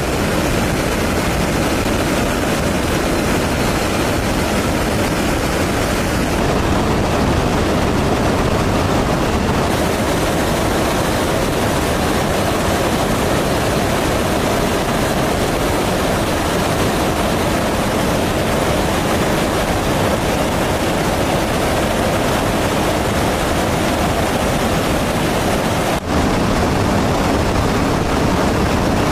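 Steady rushing roar of jet aircraft in flight, an even noise that cuts out for an instant near the end.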